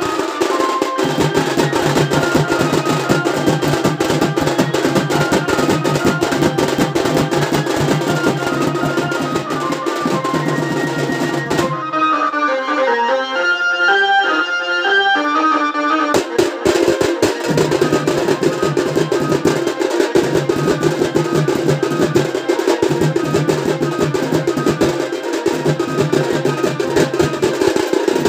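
A folk drum band's barrel drums and stick-played side drums beat a fast, dense rhythm together, with a stepped melody sounding over them. About twelve seconds in, the drums stop for roughly four seconds while the melody carries on alone, then they come back in.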